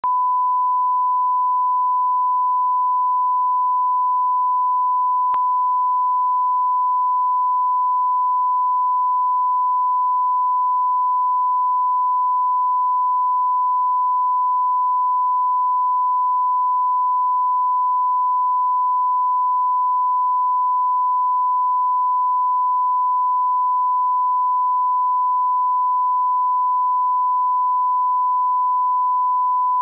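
Steady 1 kHz broadcast reference tone, a single unbroken pure beep. It is the line-up tone that runs with colour bars for setting audio levels.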